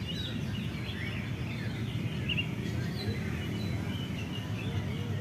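Oriental magpie-robin singing a loose run of short, varied chirps and whistles, over a steady low rumble of background noise.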